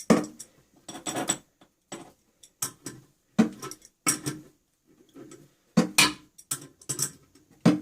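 Hand tools and metal fastening hardware clinking and knocking irregularly, a series of sharp strikes, some with a short ring, as a toilet is secured to its floor bolts.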